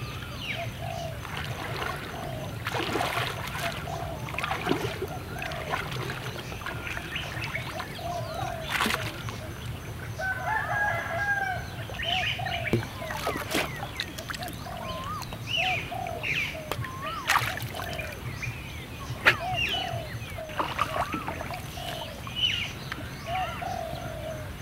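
Chickens and other birds calling again and again, with a longer crow-like call about ten seconds in. Over them come scattered sharp clicks and splashes as branches of a brush pile are handled in shallow water, the loudest click about three-quarters of the way through.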